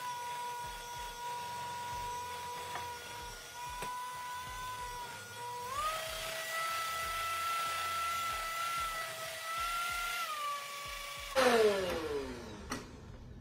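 Electric hand mixer running with a steady motor whine, its beaters churning brownie batter in a glass bowl. About halfway the whine steps up in pitch as the mixer speeds up, then eases down a little. Near the end there is a sudden loud noise as the beaters come out of the bowl, and the motor winds down with a falling whine.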